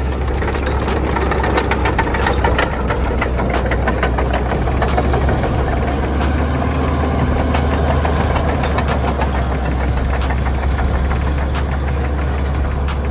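Komatsu bulldozer's diesel engine running steadily, with a deep hum, and frequent short metallic clanks from the machine working.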